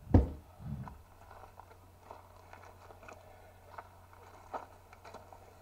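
A heavy low thump right at the start, a softer thud just after it, then faint scattered clicks over a steady low hum.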